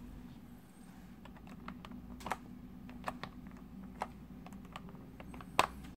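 A few scattered plastic clicks and taps as a plastic keycap puller is pushed onto the keycaps of a Xenics StormX K2 membrane keyboard, the last click near the end the sharpest. A faint steady low hum runs underneath.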